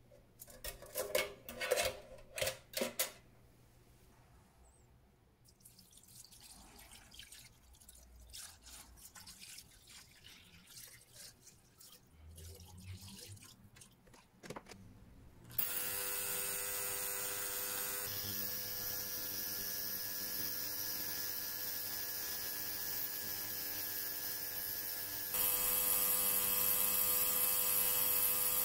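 A stainless wire basket of watch parts in mesh tea-ball containers clattering against a steel cleaning tank as it is set in, then quieter handling. About halfway through, the ultrasonic cleaner switches on and runs with a steady buzzing hiss, which gets louder about three-quarters of the way through.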